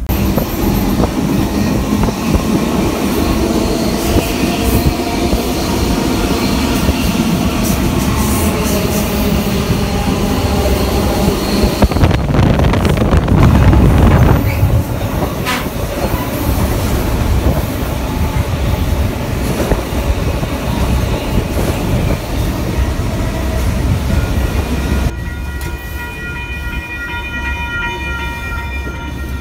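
Passenger train running at speed: a loud, steady rumble and rattle of wheels and railcar, loudest about halfway through. About 25 seconds in it gives way to a quieter, slow roll with a steady high-pitched squeal from the train's running gear as it creeps into a station.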